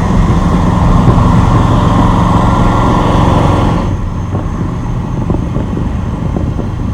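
Chevrolet Silverado pickup being driven on a flat rear tire: engine running steadily under road and tire noise. The rushing noise drops off about four seconds in while the engine hum carries on.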